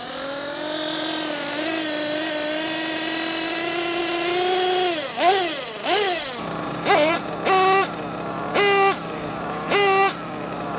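Small nitro engine of a 1/8-scale RC buggy running at a steady high pitch, then revved up and down twice, then given four short, loud bursts of throttle at the same pitch to burn in new clutch shoes so they won't slip.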